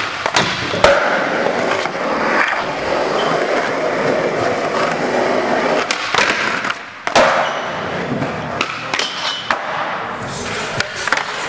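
Skateboard wheels rolling on a smooth skatepark floor, broken by the sharp pops and clacks of the board on tricks and landings, several times over; the loudest hit comes about a second in.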